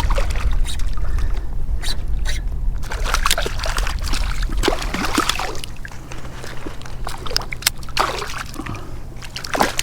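Shallow bay water splashing and sloshing around a wade fisherman, with irregular small splashes and trickles over a steady low rumble.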